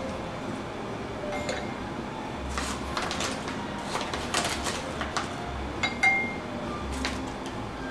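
A spoon scooping ground coffee from a paper bag into a glass French press: scattered light clinks of the spoon against the glass, with rustling of the grounds and bag in between.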